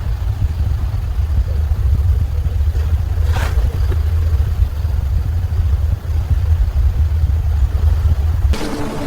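Deep, steady low rumble of a vehicle, with a brief whoosh about three and a half seconds in. It cuts off suddenly near the end and gives way to music.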